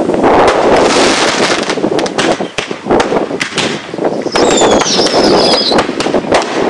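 Fireworks display: rapid crackling and bangs of many bursts in quick succession, with a high whistle lasting about a second and a half near the middle.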